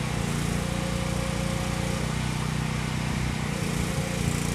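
Portable generator's small engine running steadily, with a slight change in its note about three and a half seconds in.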